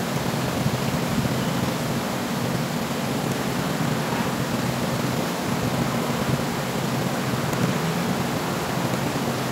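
A steady, even hiss with a low rumble underneath and no distinct clicks or taps standing out.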